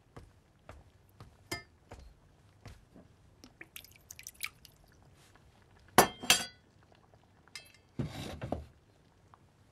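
Ceramic bowls and a ladle clinking as thin gruel is ladled into a bowl and bowls are set down on a stove. The loudest are two ringing clinks about six seconds in, followed by a short clattering rattle about two seconds later.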